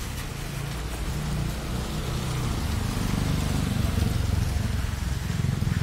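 Outdoor street ambience: a steady hiss over a low, uneven rumble that grows a little louder after the first couple of seconds.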